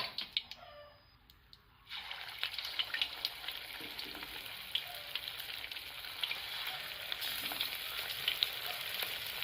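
Chicken wings frying in hot oil: a steady sizzle with scattered crackles and spits, starting about two seconds in after a near-quiet moment with a few clicks.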